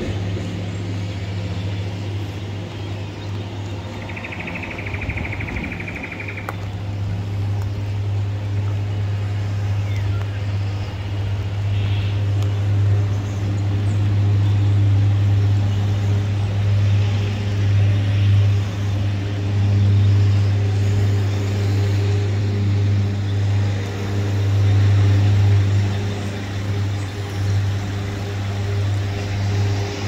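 Steady low engine hum from a running motor vehicle, swelling somewhat louder past the middle. A brief high-pitched trill sounds over it about four seconds in.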